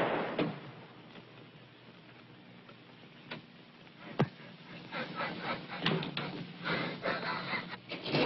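A loud bang dies away, then scattered sharp clicks and knocks, with one crisp knock about four seconds in and a busier run of taps and scuffles in the second half.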